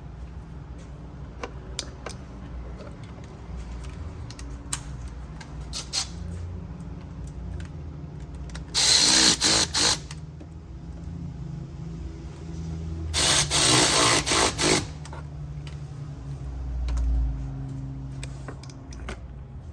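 Handheld power tool, such as a drill or impact driver, run in two short bursts of a second or so each, a few seconds apart, each trigger pull broken by brief stops. A steady low shop hum and small clicks of handling lie underneath.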